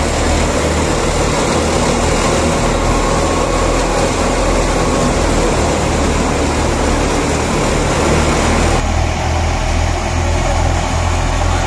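Tractor-driven multi-purpose thresher running steadily while mustard stalks are fed in: a loud, dense mechanical clatter over the low hum of the tractor engine. The sound thins slightly about nine seconds in.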